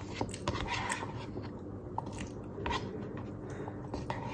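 Quiet close-mouthed chewing of a mouthful of spaghetti carbonara, with a few short clicks as a metal spoon stirs in the paper cup.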